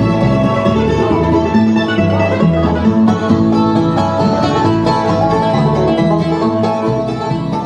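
Bluegrass-style music with plucked banjo and guitar, fading out near the end.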